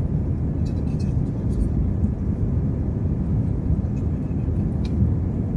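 Steady cabin noise of an Airbus A320 climbing out just after takeoff: jet engines and airflow make a dense, even low rumble, with a few faint high ticks.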